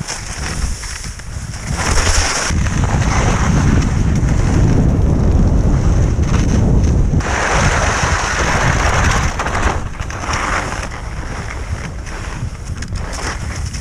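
Wind buffeting the microphone of a fast downhill skier, heavy from about two seconds in, with the hiss and scrape of skis sliding on snow surging louder in stretches.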